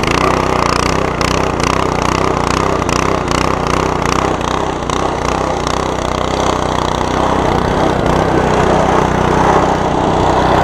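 Simpson MSH3125 gas pressure washer's small single-cylinder engine (a Honda GC190) running steadily at working speed.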